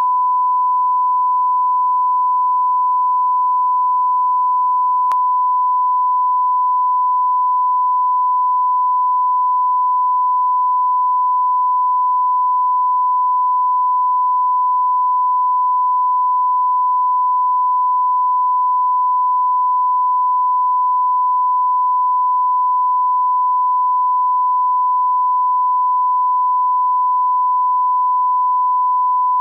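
Steady 1 kHz reference test tone, one unbroken pure pitch at a constant level, played with colour bars for audio line-up. A faint tick about five seconds in.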